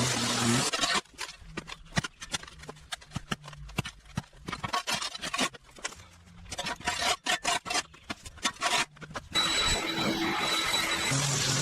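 Pressure washer spraying with a steady hiss. The spray cuts off about a second in, leaving a faint low hum with scattered clicks and scrapes for about eight seconds, then starts again near the end.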